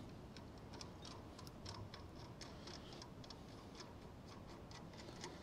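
Faint, irregular metallic ticking of a nut being spun by hand onto a freshly single-point-cut shoulder bolt thread, a test fit of the thread.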